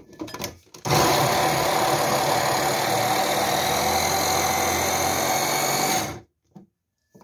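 Electric mini chopper's motor running steadily for about five seconds as its blades chop dark-leaf cabbage, then cutting off abruptly. A few knocks of the motor head being seated on the bowl come just before it starts.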